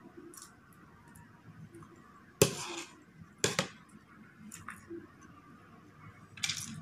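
Metal spoon and fork clinking and scraping against ceramic plates: a few sharp clinks, the loudest about two and a half seconds in and another a second later, with lighter taps near the end.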